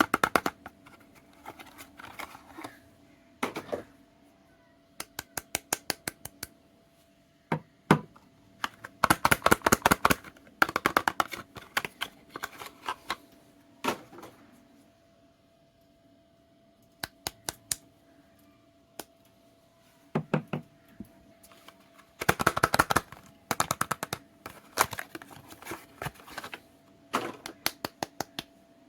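Soap being worked by hand for ASMR: bursts of rapid, crisp clicks and crackles, each run lasting a second or two, with short pauses between them.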